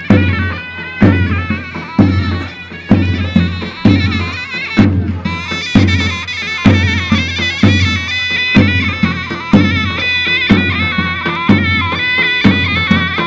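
Turkish folk dance music: a shrill reed wind instrument plays an ornamented melody over a heavy bass drum struck about once a second.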